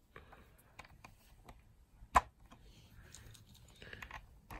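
Plastic Lego bricks clicking and knocking as loose pieces are picked through and pressed onto a build, with small scattered ticks and one sharp click about two seconds in.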